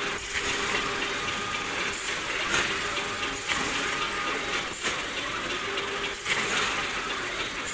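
Factory machinery noise around a robotic palletizing line: a steady hiss with a few faint steady tones and several short knocks and clanks.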